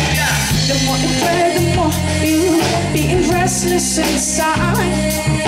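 Live band music: an electric bass guitar playing a steady low line under drums, with a wavering melody line over it in the middle of the passage.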